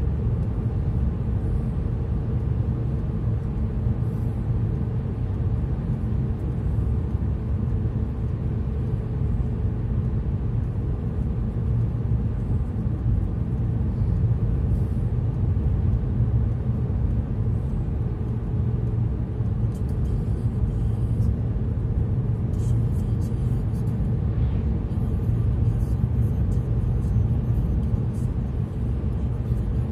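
Steady engine and road rumble of a car driving along a highway, heard from inside the car.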